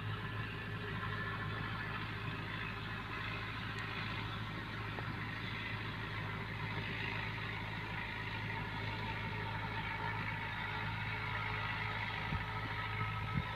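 Fiat 640 tractor's diesel engine running steadily as it pulls a laser land leveler bucket through loose soil.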